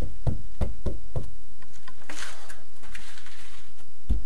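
Work noise at a block wall: a run of soft, low knocks, about three a second, then a rough rubbing scrape lasting over a second, then more knocks near the end.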